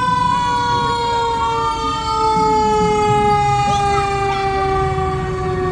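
Fire engine siren winding down, one steady tone sliding slowly lower in pitch, over the low rumble of the passing fire truck's engine.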